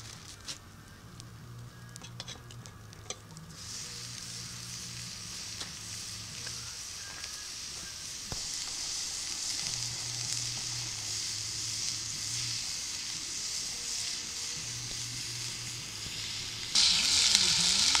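Campfire crackling at first, then raw ground beef and pork meatballs sizzling as they brown in a hot cast-iron Dutch oven. The sizzle steps up about halfway through and grows much louder near the end.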